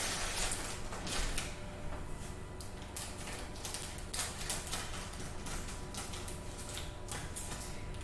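Scissors cutting open a plastic sachet of cookie mix, the packet crinkling in the hands: a run of irregular short snips and rustles.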